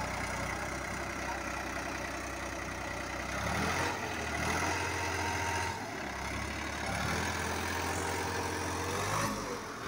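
New Holland 3600 tractor's diesel engine pulling hard against another tractor in a tug-of-war. It runs steadily at first, revs up about three and a half seconds in, drops back near six seconds, then revs up again and settles just before the end.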